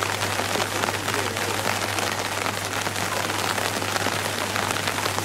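Steady heavy rain falling on a wet asphalt road, an even hiss with a faint low hum underneath.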